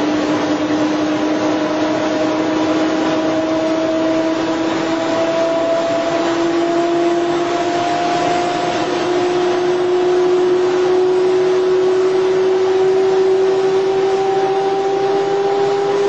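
Boeing 737-400's CFM56-3 turbofan spooling up during engine start: a steady rush with a whine that rises slowly in pitch, growing a little louder about ten seconds in.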